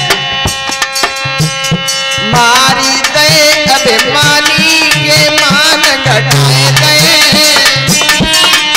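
Instrumental interlude of a Hindi devotional song: a harmonium plays held chords and a melody, some of its lines bending in pitch, over steady tabla-style hand-drum strokes.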